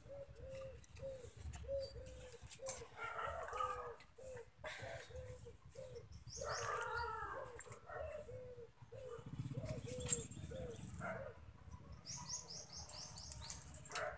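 A bird calling with a short note repeated about twice a second, with quick runs of high chirps from another bird now and then.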